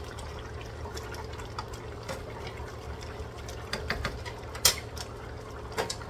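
Chicken adobo simmering in a covered pot over low heat, bubbling with scattered small pops over a steady low hum. A sharper click stands out about two-thirds of the way through, and another comes near the end.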